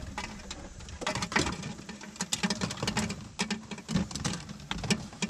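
Irregular light clicks, taps and rustles from hands handling wiring and plastic connectors at a car's dome light.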